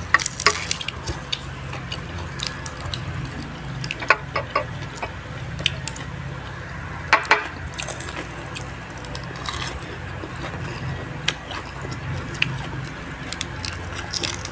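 Close-up eating sounds: people chewing crispy fried chicken skin and fried lumpia, with scattered sharp crunches every second or few seconds over a low steady hum.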